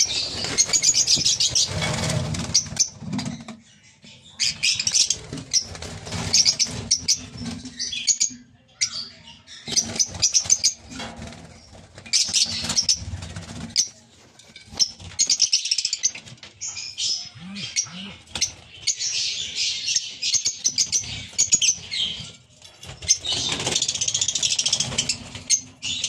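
A colony of lovebirds chattering and squeaking in repeated high-pitched bursts, with brief lulls, along with wing flutters and scattered knocks and rustles.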